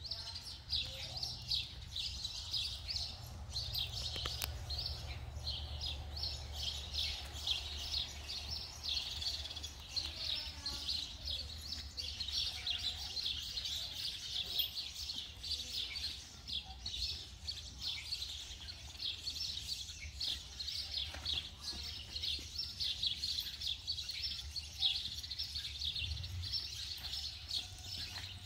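Many small birds chirping and twittering steadily, a dense, continuous chorus of rapid high chirps, over a low steady hum.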